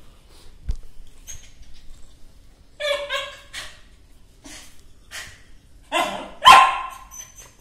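Small white spitz-type dog barking at intervals: a few barks about three seconds in, then two louder ones near the end, the last the loudest.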